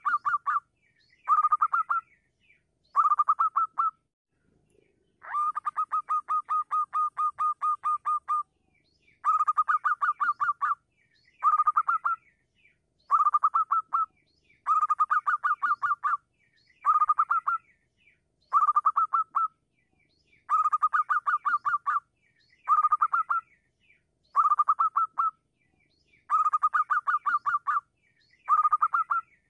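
Zebra dove (perkutut) singing: repeated runs of rapid, evenly spaced staccato coo notes, each run about a second long with short pauses between, and one longer run of about three seconds near the start.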